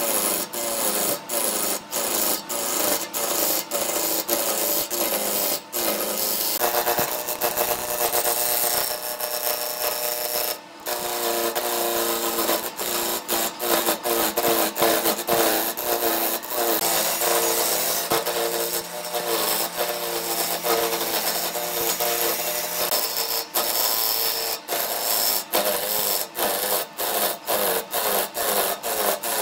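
Turning tool cutting into a large segmented wood blank spinning on a wood lathe: a loud, continuous scraping and shaving, broken by short dips about twice a second and once briefly near the middle. A humming tone runs under it from about a quarter of the way in.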